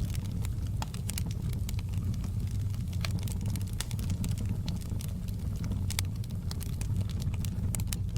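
Wood fire burning in a fireplace: a steady low rumble of flames with frequent irregular sharp crackles and pops from the logs.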